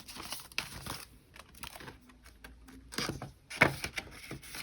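Paper prop bills and a cash envelope rustling and crinkling as the money is handled and stuffed, with a cluster of louder rustles about three to four seconds in.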